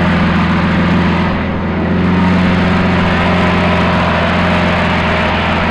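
Lamborghini Aventador's V12 engine idling, a steady low drone that holds the same pitch throughout.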